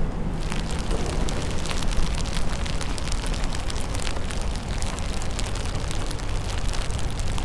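Rain falling, with many drops ticking close to the microphone in quick, irregular succession over a steady low wind rumble. The ticking starts about half a second in.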